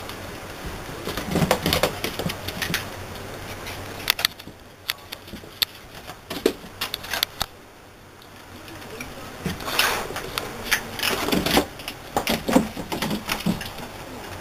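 Two puppies scuffling and play-fighting: bunches of quick clicks and taps, with a quieter stretch just past the middle.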